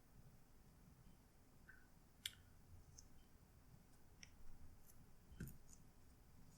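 A few faint clicks and taps of a laptop's replacement screen panel being handled and set into its clips, otherwise near silence.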